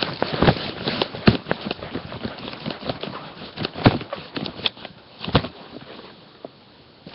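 Handling noise from a webcam being picked up and moved about: irregular knocks, taps and rustling against the microphone, busiest in the first five seconds and dying down near the end.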